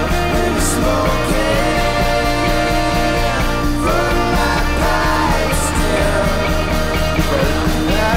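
Rock song playing as background music, a full band with a singing voice over a steady bass line.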